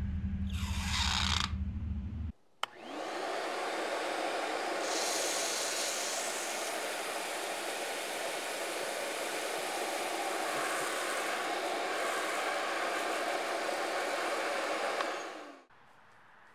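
Steady rushing noise of a blower blasting air, starting about two and a half seconds in and stopping suddenly near the end. Before it comes a low hum and a brief whoosh.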